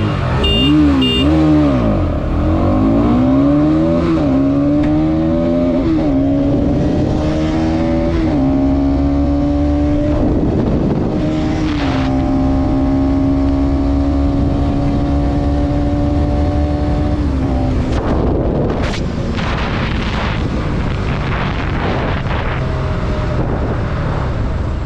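Bajaj Pulsar NS200's single-cylinder engine at full throttle in a drag run. The note climbs and drops at each of several upshifts, holds steady at high revs for several seconds, then the throttle closes about eighteen seconds in, leaving wind rush.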